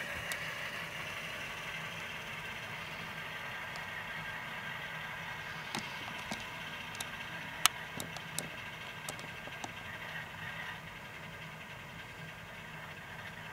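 Sound decoder in a model Alco RS3 diesel locomotive playing a steady diesel engine drone through the model's small speaker as it runs. A scattering of sharp clicks comes partway through, with one louder click about two-thirds of the way in.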